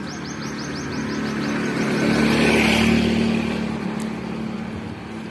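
Motorcycle passing close by: its engine grows louder, peaks about halfway through, then fades away.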